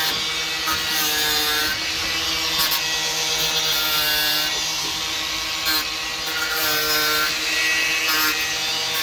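Cordless angle grinder running, its disc grinding the teeth of a Stihl chainsaw chain one after another to sharpen them. There is a short rasp of metal on metal each time the disc touches a tooth, about once a second, over the grinder's steady whine.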